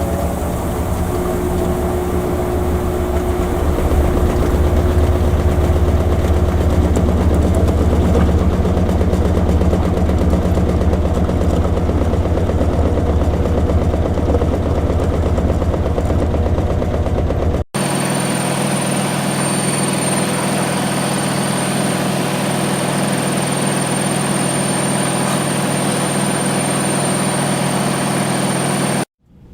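Washing machine running with a loud, steady motor hum. About 18 seconds in it cuts abruptly to a different steady hum with a thin high whine, which cuts off again near the end.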